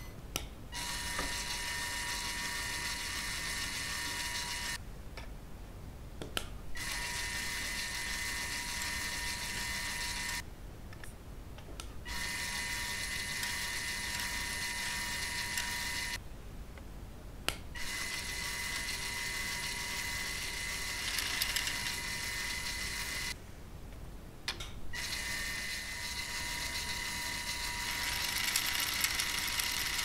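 Lego Technic gear train of 40-tooth and small plastic gears, driven by a Lego electric motor, running with a steady whine and gear rattle. It stops and starts again four times.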